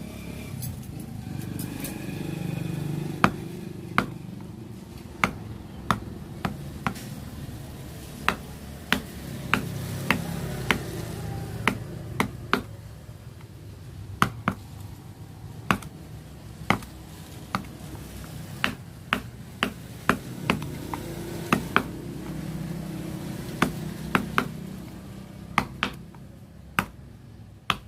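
A wooden carving chisel being tapped with a mallet: sharp knocks at uneven intervals, roughly one a second, over a low rumble that swells and fades.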